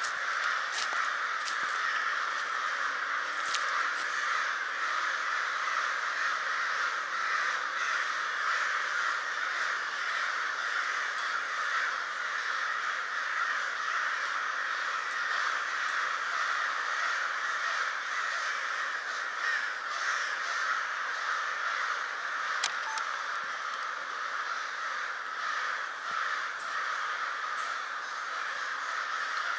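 A large flock of crows, about a hundred, cawing all at once in a dense, unbroken chorus of overlapping calls. They are going nuts over something they must have found.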